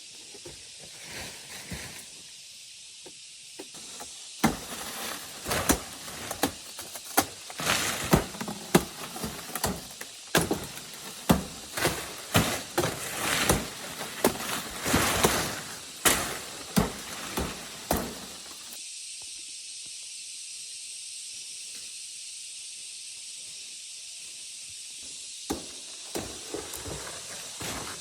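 Dry palm leaves rustling and crackling under a run of sharp, irregular strikes for about fourteen seconds, then stopping. After that only a steady high hiss remains.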